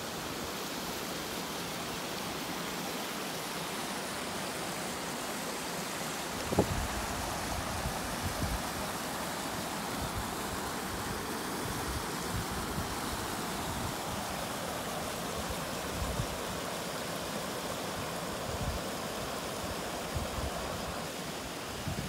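Muddy floodwater from an overflowing pond rushing over the spillway and across the ground: a steady rushing noise, with one sharp thump about six seconds in.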